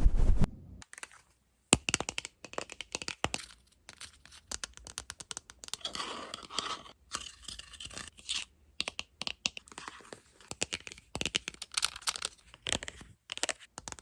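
Fast, irregular scratching, crinkling and tapping sounds made on objects as ASMR triggers, after a short silence about a second in.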